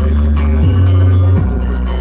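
Electronic dance music played loud through a KSG Audio sound-check rig of twelve subwoofers. A heavy, sustained bass line dominates and slides down in pitch twice.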